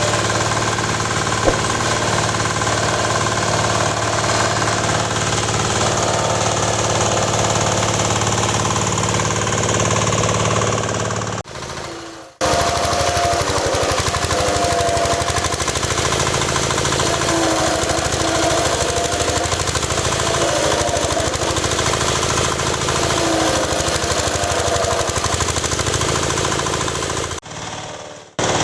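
Wood crusher machine running, a loud steady mechanical drone with rattling. It cuts out abruptly and briefly twice, about twelve seconds in and near the end.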